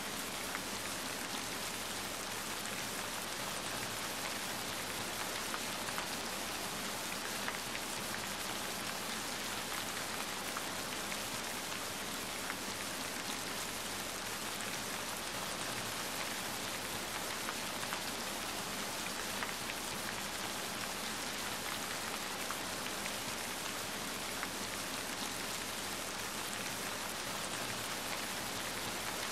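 Steady rain falling, an even hiss with scattered faint crackles from a wood fire.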